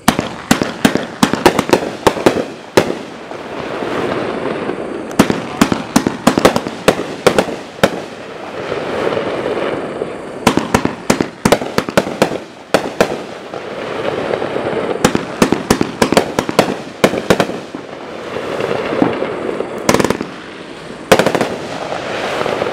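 Dominator Silky Sweet 25-shot fireworks cake firing: a rapid, irregular string of sharp bangs from shots launching and breaking overhead, over a hiss that swells and fades between volleys.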